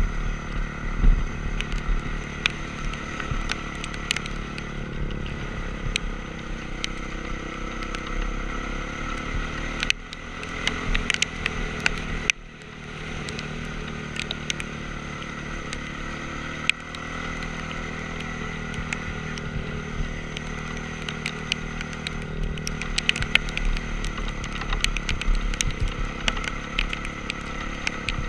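Honda CRF450R's single-cylinder four-stroke engine running under easy throttle as the motocross bike is ridden, with scattered clicks and clatter. The engine note drops off briefly about ten seconds in and again near twelve seconds, then picks back up.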